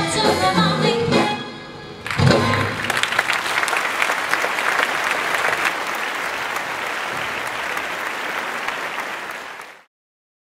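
A live band's music ends with a final chord about two seconds in. An audience then applauds steadily until the sound cuts off suddenly near the end.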